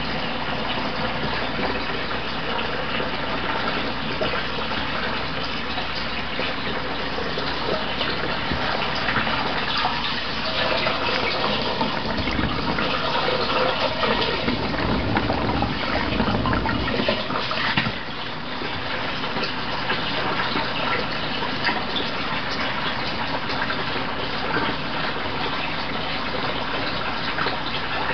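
Water gushing and splashing steadily as it pours in and fills a doll house, heavier from about ten seconds in and easing suddenly just before eighteen seconds.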